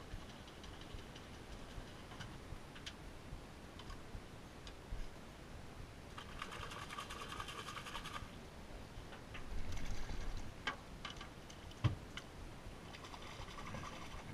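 A calling animal makes a rapid, even, pulsing buzz, heard for about two seconds midway and again near the end. A sharp knock comes shortly before the second buzz.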